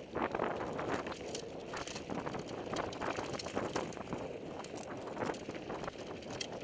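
Mountain bike riding fast down a dry, dusty dirt trail: tyres crunching over dirt and small rocks, with the bike rattling and clattering over the bumps, under a rush of wind on the microphone.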